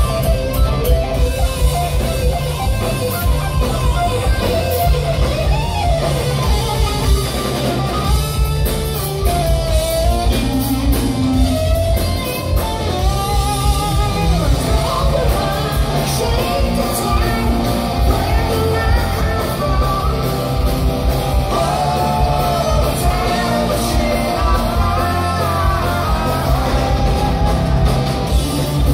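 Live rock power trio playing: distorted electric guitar, electric bass and drum kit at full volume, with singing over the top.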